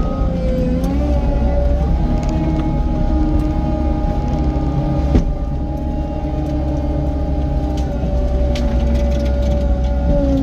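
Cat 255 skid steer's diesel engine running under work, heard from inside the cab, its pitch shifting slightly near the start and near the end over a heavy low rumble. A single sharp knock about five seconds in.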